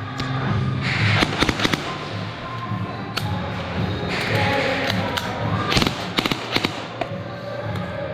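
Background music with quick clusters of sharp clicks, several at a time, about a second in, near three seconds and around six seconds: Nerf blaster shots firing foam darts.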